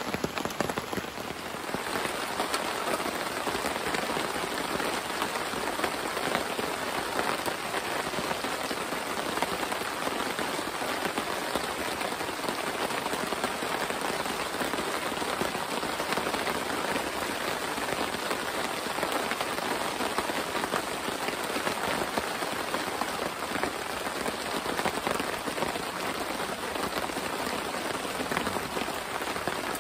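Steady rain pattering on the nylon tarp canopy overhead and the leaf-covered forest floor.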